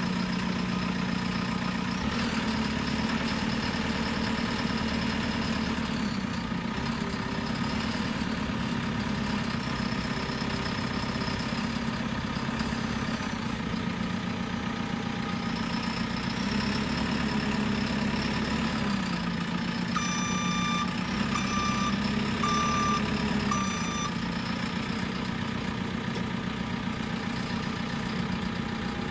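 JCB 3CX backhoe loader's diesel engine running, its speed rising and falling several times. Near the end its reversing alarm beeps four times, about a second apart.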